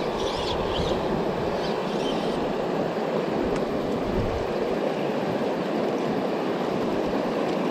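Clear river water flowing over a shallow stony bed: a steady, even rush.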